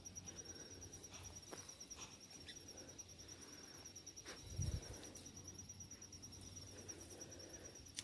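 Faint, steady high-pitched insect trilling, an even pulsing tone, with a soft low thump about halfway through.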